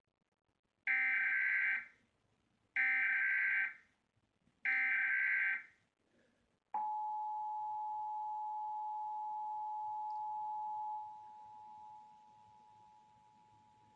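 Emergency Alert System broadcast: three identical one-second bursts of SAME header data, a harsh digital screech, about a second apart. Then the EAS attention signal starts, a steady two-note tone that drops to a lower level for its last few seconds. This sequence marks the start of a national EAS alert, here a periodic test.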